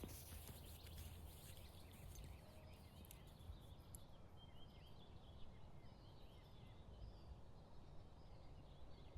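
Near silence: faint outdoor ambience with a low rumble and scattered, faint high chirps throughout.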